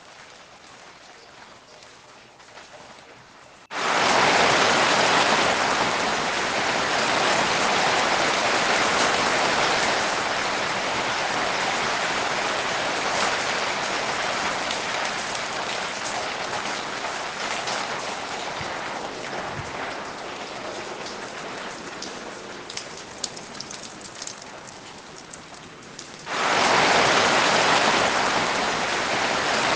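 Heavy rain falling, a dense even hiss. A quieter stretch of rain cuts abruptly to a much louder downpour about four seconds in. That downpour eases gradually, then cuts abruptly back to a louder downpour near the end.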